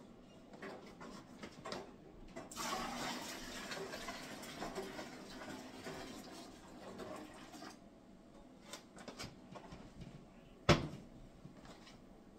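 Hot boiled water poured from a cooking pot into a plastic fermenting bucket, an even splashing pour of about five seconds. About two seconds before the end comes a single sharp knock.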